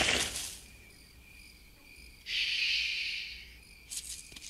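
Crickets chirping in a night-time film soundtrack, a faint steady high chirp, as the music fades out in the first half second. A hiss lasting about a second comes around the middle, and a few soft clicks near the end.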